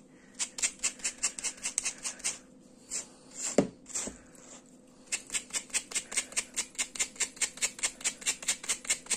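Wire pins of a slicker brush raking through crocheted acrylic-style yarn in quick repeated strokes, about four or five a second, teasing the stitches out into fluffy fur. There is a short run of strokes, a pause with one brief falling-pitched squeak-like sound, then a steady run of strokes.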